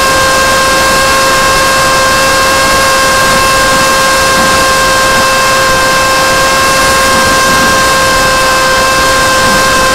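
Small brushless electric motor (Sunnysky 2204 2300kv) spinning a 6x4.5 propeller on a foam flying wing in flight: a steady, high-pitched whine held at constant throttle, heard from a camera strapped to the wing over a constant rush of air.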